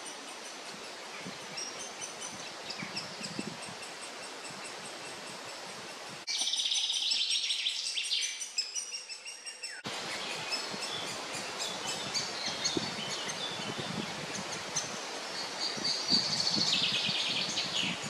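Great spotted woodpecker nestlings begging from the nest hole: high, rapid, repeated chattering calls, loudest about six to ten seconds in and again near the end as the adult arrives with food. Other woodland birdsong runs underneath.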